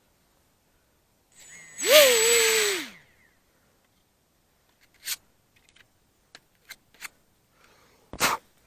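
Small electric RC plane motor and propeller run up briefly about two seconds in, the pitch falling as it spins down. Later come a few light clicks of handling and a thump near the end.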